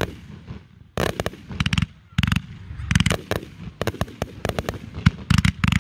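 Fireworks display: aerial shells bursting in quick volleys of sharp bangs, one cluster after another, coming thickest in the second half.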